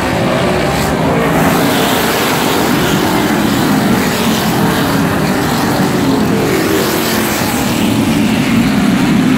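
A pack of modified race cars racing past, their V8 engines loud and steady.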